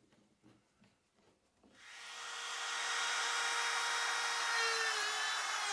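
Compact trim router starting up and running steadily at speed, routing a recess in plywood. It is nearly silent at first, then comes up to speed about two seconds in, and its pitch dips slightly near the end.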